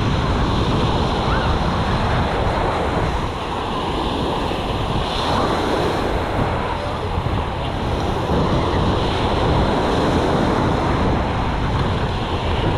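Small surf washing onto a sandy beach in a steady wash, with wind buffeting the microphone.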